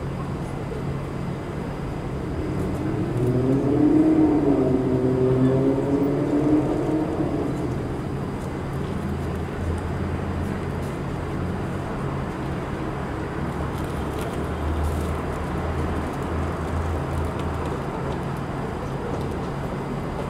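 Steady city traffic noise, with one vehicle engine rising and then falling in pitch, loudest about four seconds in.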